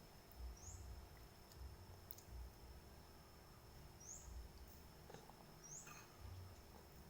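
Near silence: faint room tone with a steady high whine, a few short high chirps and a few light clicks and low thuds.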